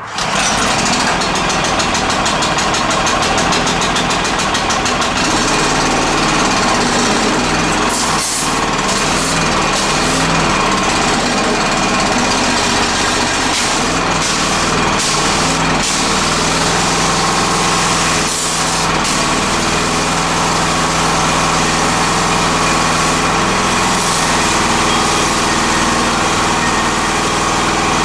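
Freshly rebuilt MI-T-M CW-3004 gas pressure washer engine catching right at the start and then running steadily.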